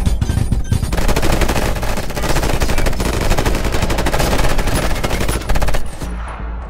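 Sustained automatic fire from several M4-style assault rifles firing together, a dense unbroken run of shots that stops a little before six seconds in.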